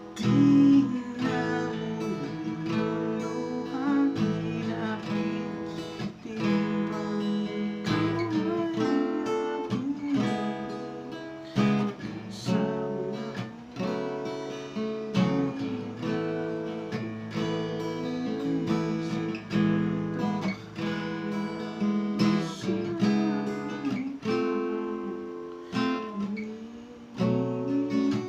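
D&D Django Jr. mahogany acoustic guitar played unplugged, strummed chords mixed with picked notes, with a crisp tone.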